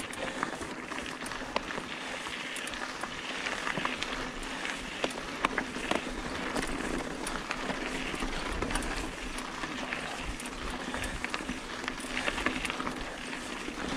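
Mountain bike tyres rolling fast over a rocky, gravelly trail, with steady rushing noise and a stream of sharp clicks and knocks from stones and the bike rattling over bumps.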